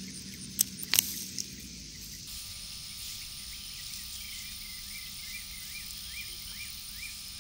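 A few sharp clicks in the first two seconds. The sound then changes abruptly to summer outdoor ambience: a steady high-pitched insect chorus of crickets, with a short chirp repeating about three times a second.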